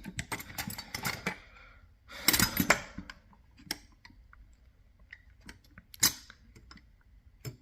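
Metal hand tools clinking and rattling as they are handled in a toolbox drawer: a run of small clicks, a louder clatter about two seconds in, then a few sharp single clinks.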